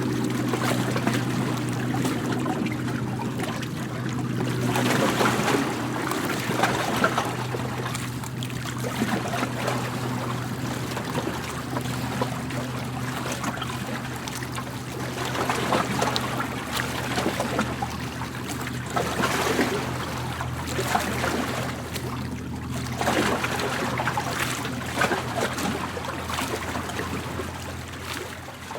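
Waves washing in and drawing back, swelling every few seconds, over a steady low hum. The sound begins fading out near the end.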